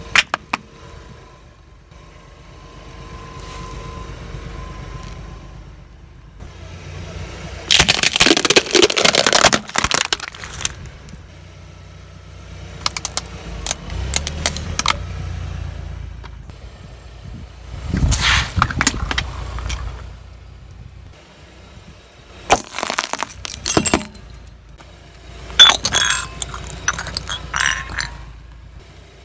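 A car tyre rolling slowly over a series of objects and crushing them one after another, among them laundry detergent pods and a charging cable with its plug. Several loud crunching and cracking bursts come a few seconds apart over a low engine rumble.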